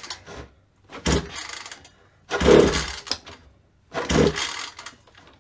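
Recoil pull-starter of a 1/5-scale RC car's two-stroke engine yanked three times, about a second and a half apart, the engine turning over briefly on each pull without running on. A cold start with no choke.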